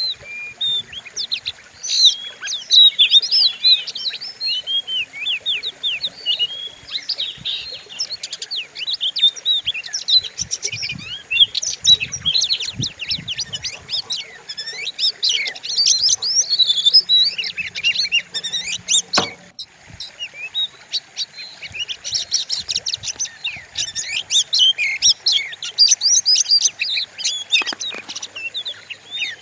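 Oriental magpie-robin (kacer) singing a fast, fierce, varied song of rapid rising and falling whistles and chatter with hardly a pause. About two-thirds through there is a single click and a short break.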